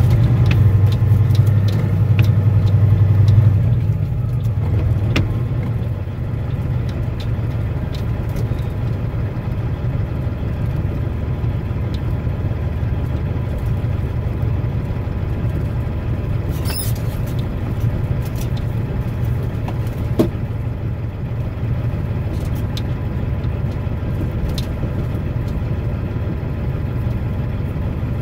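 Truck engine running steadily, heard from inside the cab as a low rumble that drops in loudness a few seconds in. Light scattered clicks and rattles, with one short knock about two-thirds of the way through.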